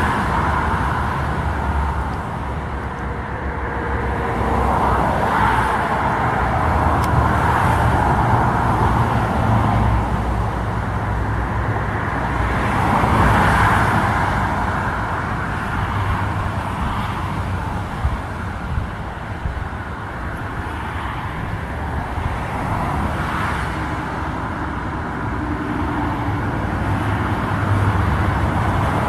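Twin jet engines of an Airbus A320-200 airliner on final approach: a steady rumble and roar that swells and fades slowly.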